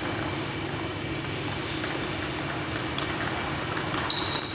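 Table tennis rally: a few light ping-pong ball clicks over a steady hiss of a pedestal fan, with high shoe squeaks on the floor near the end.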